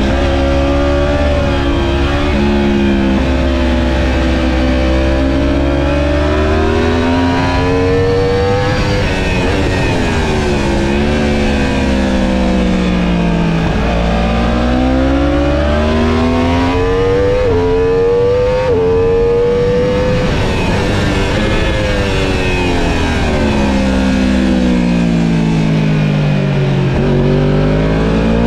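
Racing motorcycle's engine heard from on board at high revs, pitch climbing through the gears with quick upshifts and falling steeply twice as it slows for corners, over steady wind rush.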